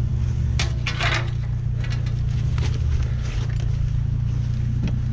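Off-road vehicle engine idling steadily close by, with a few short rustling noises near the microphone about a second in and again near the middle.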